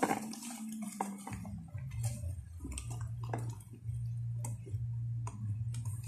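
Rustling and scattered soft clicks of a fabric backpack and the things in it being handled and packed, over a steady low hum that starts about a second in.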